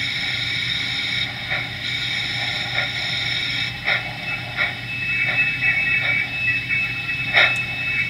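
HO-scale model steam locomotive running slowly along the track: a steady mechanical hum with a sharp click roughly once a second. A thin high whine joins about five seconds in.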